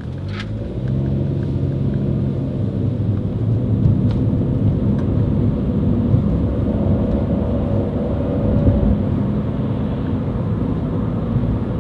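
A 2015 Chevrolet Spark's small engine and CVT driving the car on a road test: a steady low engine drone that grows louder about a second in. It runs smoothly, with the loss of power and jerking cured by the transmission repair.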